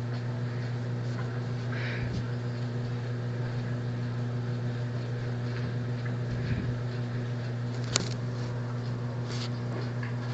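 Steady low electrical hum, like a running household appliance, with one short click about eight seconds in.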